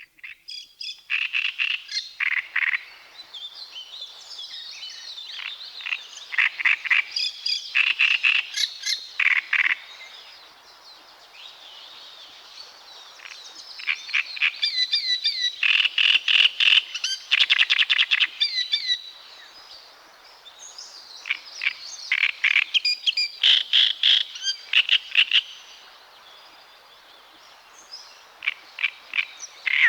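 Great reed warbler singing: phrases of rapidly repeated notes, delivered in bursts of several seconds with short pauses between them.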